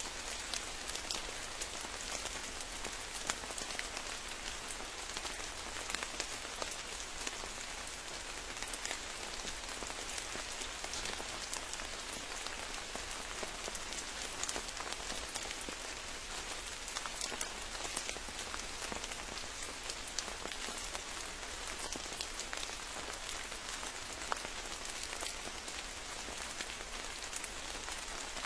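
Steady rain falling, with many sharp individual drop hits through an even hiss.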